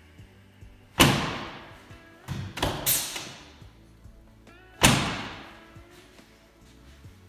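Five loud thuds from chiropractic adjustments on a treatment table, each followed by a ringing decay: one, then three in quick succession, then one more, over soft background music.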